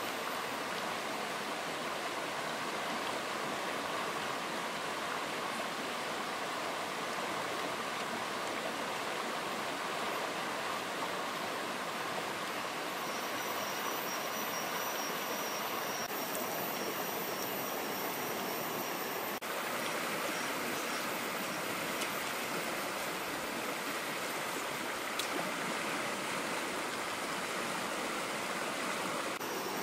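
Steady rushing of a shallow, rocky stream, its water running over stones.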